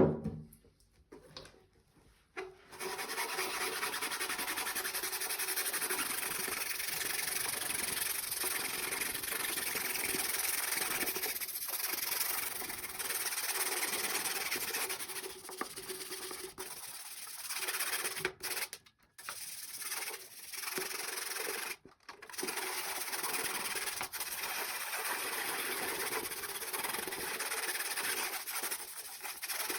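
Steady scrubbing of a coffee maker part, a brush or pad rubbing back and forth against the surface, after a single knock at the start; the scrubbing stops briefly twice, about two thirds of the way through.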